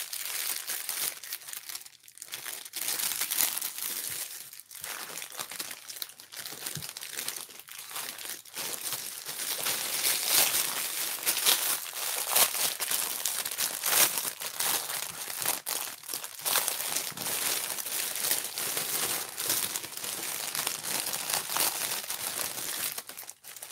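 Thin clear plastic bag crinkling continuously as it is handled around a rolled diamond painting kit tube, with a couple of short breaks in the first few seconds.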